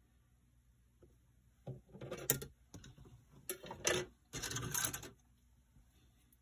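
A plastic model-kit parts tree (sprue) is picked up and handled, the plastic rattling and clattering in three short bursts.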